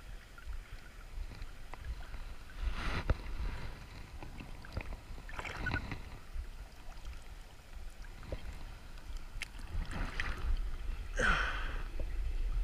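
Shallow river water splashing and sloshing in several short bursts as someone moves and digs in it, the loudest near the end, over a steady low rumble.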